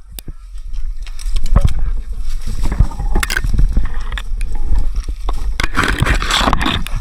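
Scraping and rustling of a player moving through brush, with scattered clicks and a heavy low rumble of handling or wind noise on a body-worn camera's microphone. It grows loudest a little before the end.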